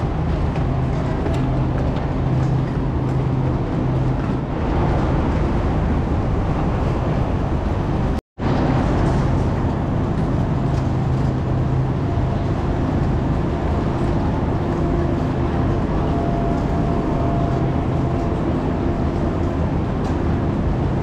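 Busy railway station ambience: a steady low hum from trains standing at the platform under the general noise of passengers moving about. The sound drops out completely for a split second about eight seconds in.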